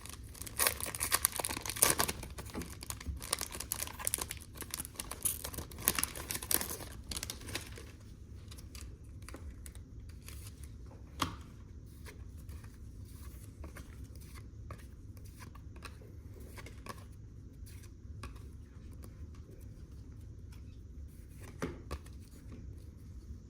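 Trading-card packaging being torn open and crinkled, with dense crackling for the first seven seconds or so. After that it goes quieter, with only a few soft clicks as cards are handled.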